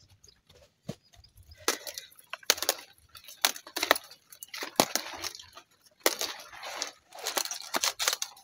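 Kale (sukuma wiki) leaves rustling, with irregular sharp snaps as leaves are broken off the stalks by hand.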